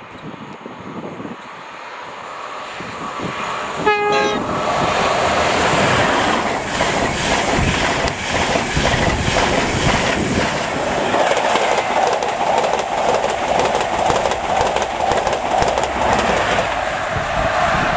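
Class 90 electric locomotive hauling Mk3 passenger coaches at speed. It approaches with rising noise, gives a short horn blast about four seconds in, then passes close by with a steady rush and rhythmic wheel clatter over the rail joints.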